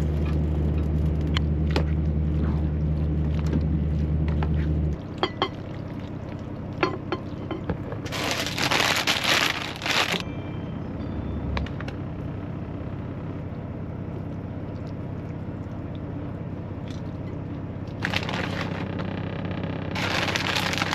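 Food preparation: cooked macaroni tipped from a plate into a metal pot and stirred with a metal spoon, with sharp clicks of spoon on pot, over a steady low hum that stops about five seconds in. Then a plastic bag of shredded cheese crinkles loudly as it is shaken out over a dish, about eight seconds in and twice more near the end.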